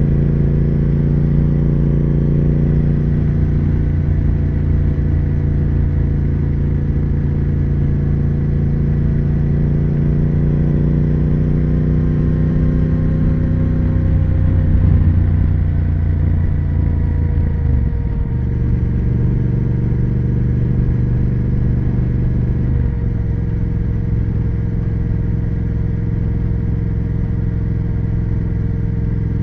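Triumph Speed Twin 1200's parallel-twin engine and exhaust running under way. The engine note swells briefly about halfway through, then changes abruptly twice in the second half.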